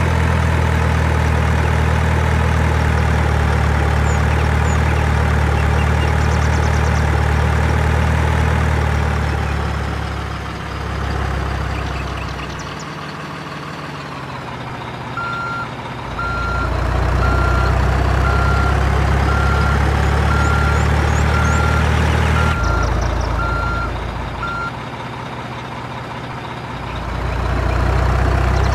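Heavy truck engine running with a low, steady hum, its pitch rising and falling as it eases off and picks up again. A reversing alarm beeps steadily, about one and a half beeps a second, for roughly ten seconds in the middle.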